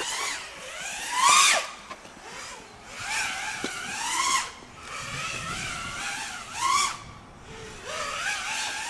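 FPV quadcopter's brushless motors whining, the pitch rising and falling with the throttle in repeated surges and short drops as the quad is flown through freestyle moves.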